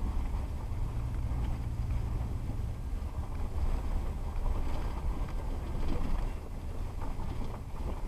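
Steady low rumble of a car rolling slowly over a gravel road, heard from inside the cabin, with a low engine hum in the first few seconds.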